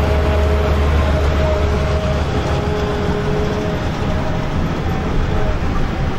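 Old New Holland Clayson combine harvesters driving along a road: a steady low engine drone as one passes close and pulls away while the next approaches. A mechanical whine from the passing combine fades out about three seconds in.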